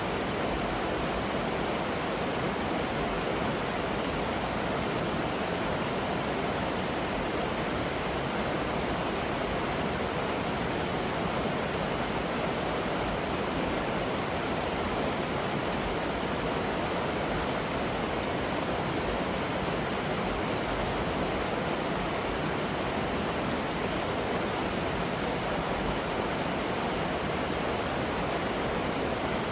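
Waterfall rushing steadily, an even unbroken roar of falling water.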